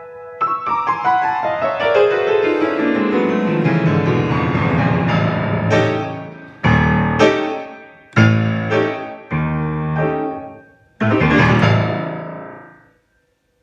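Solo piano ending a piece: a rapid run of notes working down the keyboard over the first few seconds, then a series of loud, separate accented chords, a brief pause, and a last loud chord that rings out and fades away.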